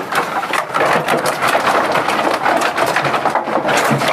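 Sheep hooves clattering on a bamboo-slat pen floor as the flock shuffles and crowds together: a dense, rapid run of clicks and knocks.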